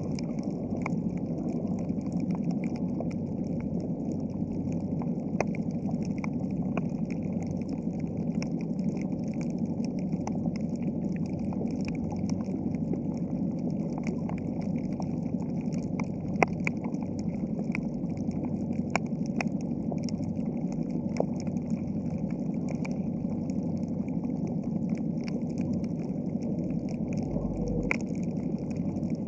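Underwater ambience picked up by a camera in its waterproof housing: a steady hiss with many scattered sharp clicks.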